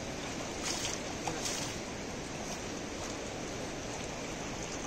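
Steady rushing of shallow river water around an elephant being bathed, with a couple of brief swishes in the first second and a half.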